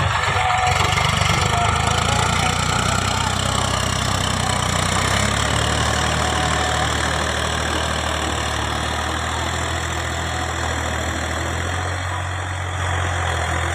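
Tractor's diesel engine running steadily, with a slight rise in level near the end.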